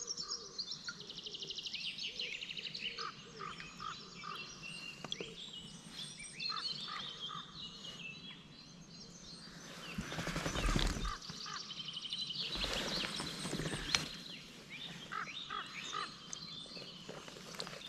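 Wild birds singing and calling in quick chirps and rapid trills, with a stretch of rustling noise in the middle.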